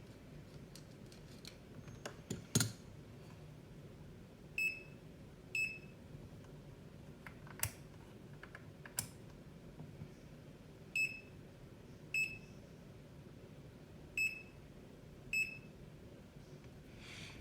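Greenlee digital multimeter beeping as its buttons are pressed: six short, high beeps in three pairs, with a few sharp clicks from the buttons or selector dial in between.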